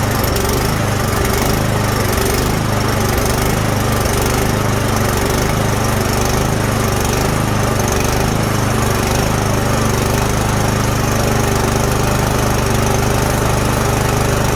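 Snowblower's small engine running steadily at a constant speed, back to running after the no-start fix.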